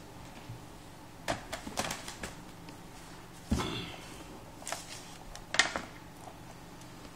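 Plastic laptop case being handled and turned over on a glass counter: a few light clicks and knocks, a heavier thump about three and a half seconds in, and a sharp knock a couple of seconds later.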